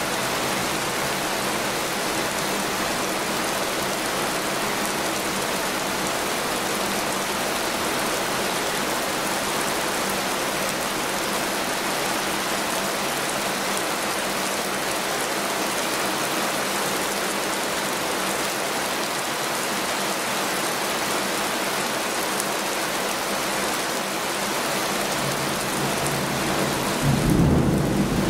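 Heavy rain falling steadily in an even hiss. Near the end a low rumble of thunder breaks in and grows louder.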